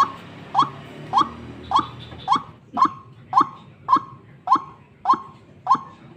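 White-breasted waterhen calling: a short rising note repeated evenly, a little under twice a second, the ruak-ruak lure call used to draw other waterhens in.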